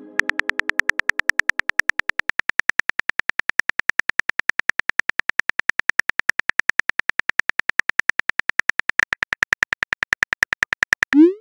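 Phone keyboard typing sound effect: a steady, rapid run of identical sharp clicks, about eight a second.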